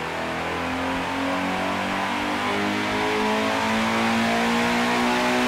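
Toyota GT86's 2.0-litre naturally aspirated flat-four boxer engine revving under load on a chassis dynamometer. One long pull, its pitch climbing slowly and steadily and its sound growing a little louder as the revs rise.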